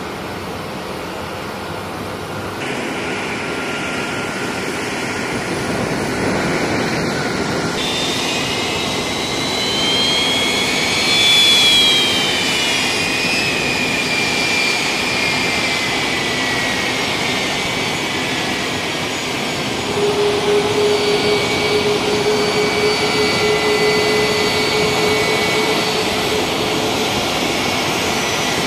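KC-135 Stratotanker's CFM56 turbofan jet engines running as the tanker taxis: a steady rush with a high whine whose pitch rises and then falls once around the middle, where it is loudest, followed by a steady hum for several seconds.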